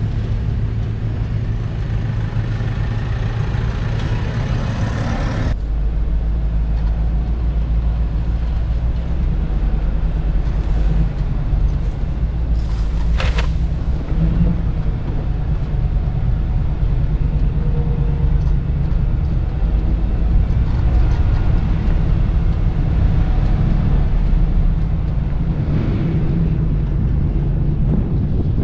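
A vehicle driving, its engine and road noise making a steady low rumble that grows heavier about five and a half seconds in, with one brief sharp noise about 13 seconds in.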